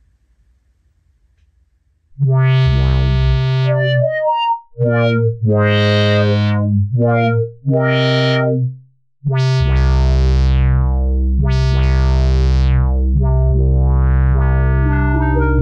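Juno-106-style patch on a Roland synthesizer played on the keys. After a brief silence come several short chords, then held chords over a deep bass. Each held chord starts bright and mellows as it sustains, and near the end the tone brightens and darkens again as the filter knob is turned.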